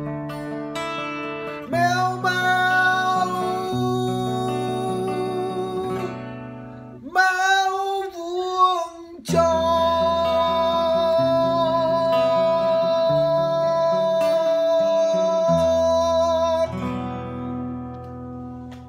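A man singing to his own acoustic guitar, over steady held chords, as the song closes. Partway through there is a wavering sung note, then one long held note, and the music fades out near the end.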